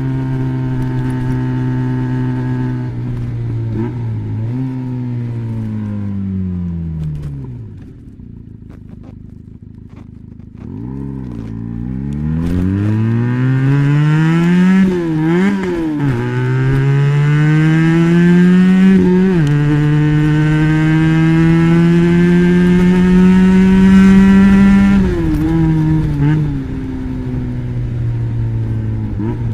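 Benelli BN302's 300 cc parallel-twin through an Arrow exhaust with the dB killer fitted. It runs steadily, then winds down to a low, quiet pitch. It then accelerates through the gears, with two upshifts, and backs off near the end.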